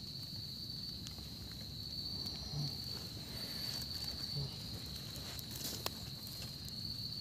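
A steady, high-pitched trill from night insects such as crickets runs unbroken. Under it is low rustling handling noise, a couple of soft thumps, and one sharp click about six seconds in.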